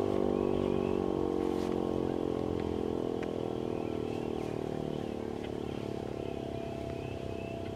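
Federal Signal Model 7B outdoor warning siren winding down after its test. It is a steady howl that slowly falls in pitch and fades.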